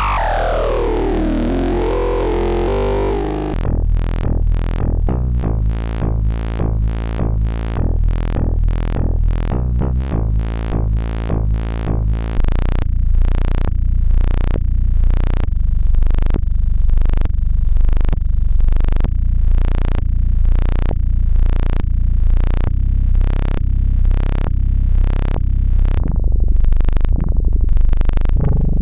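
Mutuca FM analog synthesizer played on its key pads: a pitch that sweeps steeply down, then a repeating bass-and-lead pattern of short notes at about two a second, which grows louder and fuller about twelve seconds in.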